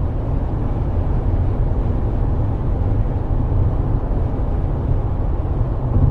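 Steady low rumble of a car's engine and road noise heard from inside the cabin, with a fainter hiss over it.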